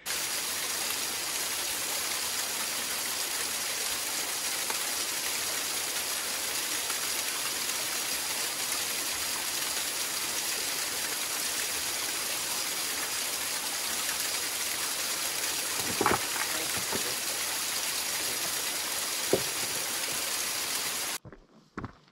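Small mountain waterfall splashing steadily down a rock face, close up, with two short knocks late on. The rush cuts off suddenly about a second before the end.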